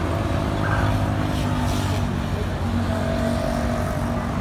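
Busy city road traffic: car and motorbike engines running and passing close by in a steady rumble.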